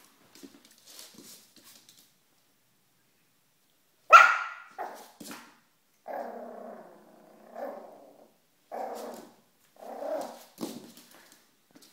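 Yorkshire terrier puppy at play: one loud, sharp bark about four seconds in, followed by a run of growls and short yaps, after a few faint ticks at the start.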